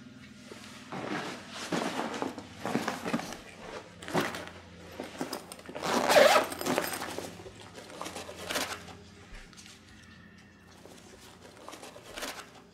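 The zipper of a nylon duffel bag being pulled open in a series of short strokes, with the bag's fabric rustling; the loudest stroke comes about halfway through, and a last short one comes near the end.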